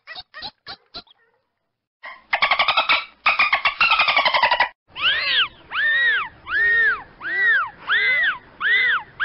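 Dolphin vocalizations. A few sharp clicks come first, then a fast buzzing click-train chatter from about two seconds in. From about five seconds in comes a string of repeated whistles, each rising and then falling in pitch, a little more than one a second.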